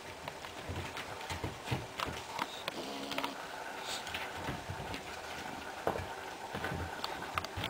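English bulldog puppies playing: irregular light knocks, scrabbling and scuffles as their paws hit the ground and a corrugated kennel roof, over a steady outdoor hiss.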